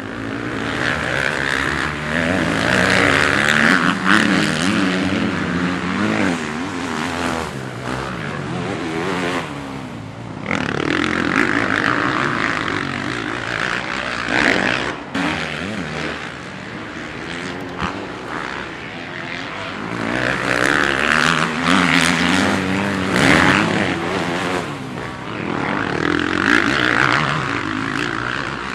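FPV quadcopter's motors and propellers whining through rushing air, the pitch wavering up and down as the throttle changes, in repeated swells with brief dips.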